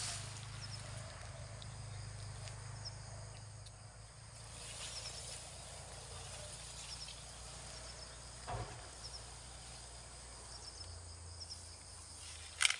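Field ambience: insects chirping in short, high calls, with the rustle of tall finger millet plants as someone pushes through them, including a louder rustle near the end.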